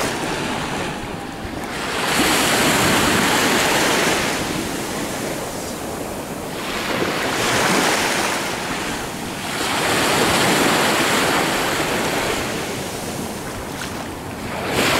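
Ocean surf in shallow water: a steady wash of small waves that swells and fades about every four seconds.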